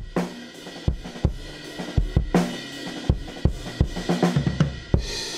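Recorded drum kit playing, mostly kick and snare hits with cymbals behind, from the kick drum's outside-mic track run through the FG-Stress compressor plugin with its distortion coloration switched in.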